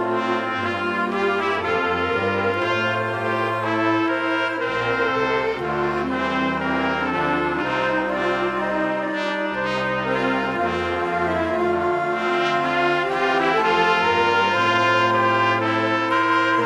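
Wind ensemble playing held chords that change every second or so over a moving bass line. The band includes flute, clarinet, saxophone and low brass.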